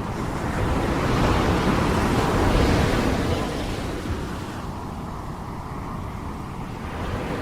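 Sea waves washing onto the shore: one surge builds about a second in and fades away after about four seconds, with wind rumbling on the microphone.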